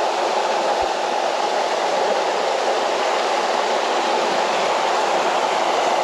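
A small waterfall and the cascade below it pouring over rocks into a pool: a steady rush of water that holds level throughout.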